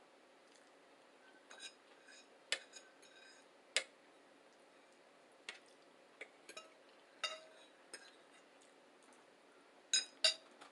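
Cutlery clinking against plates, scattered sharp ringing clinks about every second, the two loudest close together near the end.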